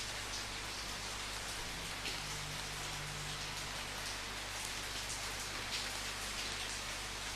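Steady rain falling, an even hiss of many drops with single drops standing out now and then.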